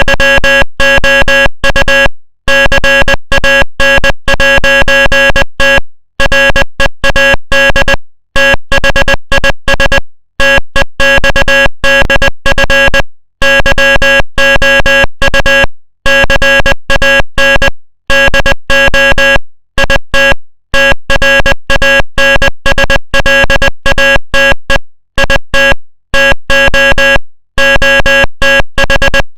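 Morse code played as a loud, buzzy electronic tone, switched on and off in short and long beeps with gaps of varying length between them.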